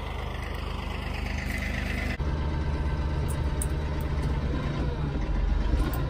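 Massey Ferguson 1835 compact tractor's diesel engine running steadily. About two seconds in it steps up to a louder, fuller sound, as heard from inside the tractor's cab.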